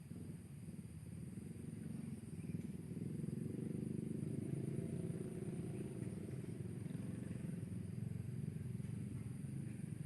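A small engine running with a fast, even pulse, growing louder about three seconds in and easing off again after the middle, over a steady high thin whine.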